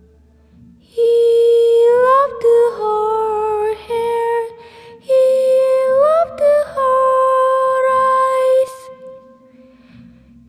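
A high, wordless sung melody, a hummed or 'ooh'-style vocal line of long held notes with upward slides between them, in several short phrases over a faint low accompaniment. It begins about a second in and fades out near the end.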